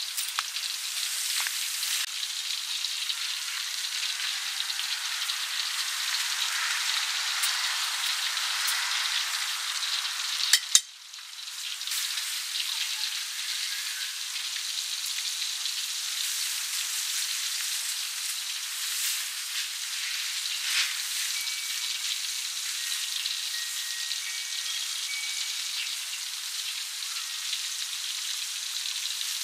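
Flour-battered duck pieces deep-frying in hot oil in a wok: a steady sizzling hiss with scattered crackling pops. About ten seconds in there are two sharp clicks and the sizzle briefly drops out.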